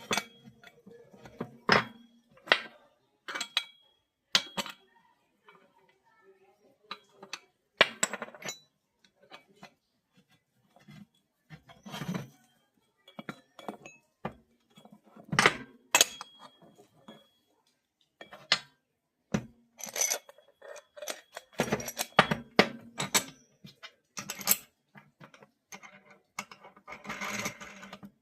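Irregular metallic clinks and knocks, some with a short ring, from hand tools and metal parts being handled and set down while a washing machine is taken apart for repair.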